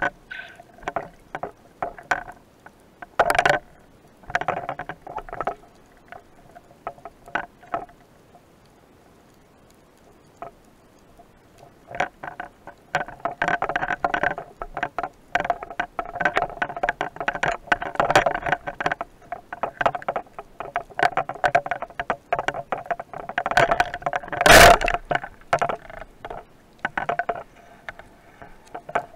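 Underwater clicking and crackling, sparse at first and denser from about halfway through, then one loud sharp bang near the end: a speargun firing, a shot that misses the fish.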